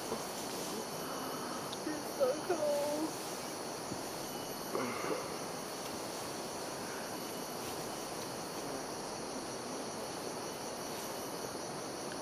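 Steady high-pitched chorus of rainforest insects, crickets or cicadas, droning without a break. Brief faint voices come through about two seconds in and again around five seconds.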